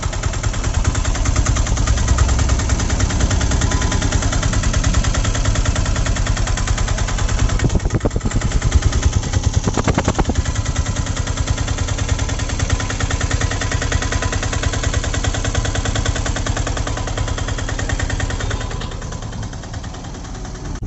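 Piaggio Ape auto-rickshaw's single-cylinder diesel engine running, a rapid, even beat. It is a little louder about eight to ten seconds in and eases off near the end.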